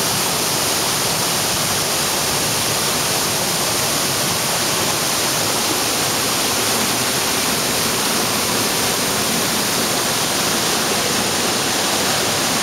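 Waterfall: water falling without a break, heard as a steady, even rush.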